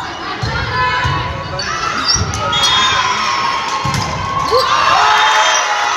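Crowd of spectators cheering and high voices shouting, swelling about halfway through, with several dull thumps underneath.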